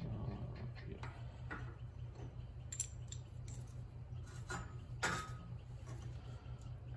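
Small metal parts being handled, with scattered light clinks and taps; the sharpest clink, about five seconds in, rings briefly. A steady low hum runs underneath.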